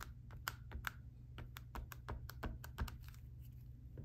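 Rapid, irregular light clicks and taps, several a second, thinning out about three seconds in.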